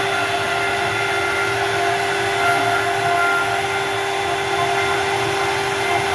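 CNC wood router running, a steady whine over a constant mechanical noise.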